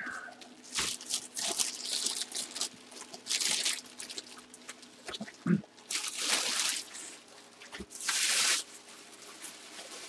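Plastic bag rustling and crinkling in several irregular bursts as a football helmet is handled and pulled out of it, with a few light knocks in between.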